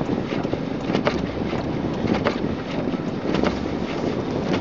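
Inside the cabin of a front-wheel-drive car driving up a snowy incline: a steady rumble and hiss of engine and tyres on snow, with scattered short knocks and ticks.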